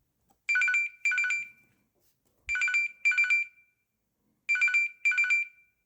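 LG BL20 Chocolate mobile phone playing a telephone-style ringtone. It gives three double rings about two seconds apart, and each ring is two short trilling bursts.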